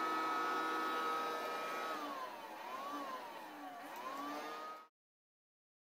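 Toy vacuum cleaner whirring with a steady whine. About two seconds in, its pitch dips and rises twice, and it cuts off suddenly about five seconds in.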